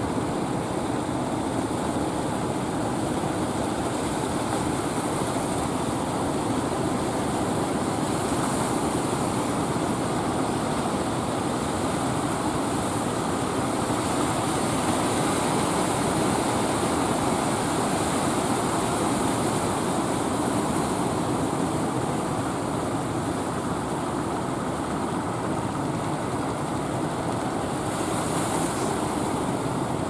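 Steady drone of fishing boat engines running under the continuous wash of breaking surf.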